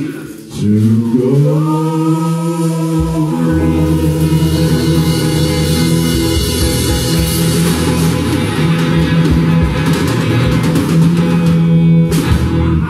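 Live blues-rock band playing: electric guitar chords ringing out, with bass and drum kit filling in about three seconds in. The music drops away just before the end.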